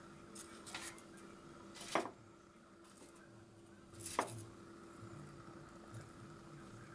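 Long wooden cooking chopsticks setting fried pieces onto a ceramic plate: a few light taps, then two sharp clacks about two seconds apart, over a faint steady hum.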